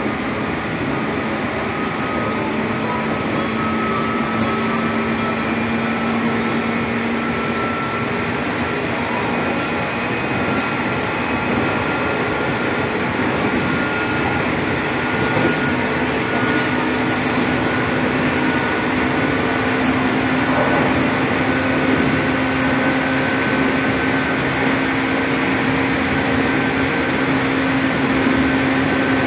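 Traction motors of a JR 205 series electric multiple unit's motor car (MoHa 205-235) whining as the train runs, heard from inside the car over the rumble of wheels on the rails. The whine's pitch climbs slowly as the train picks up speed.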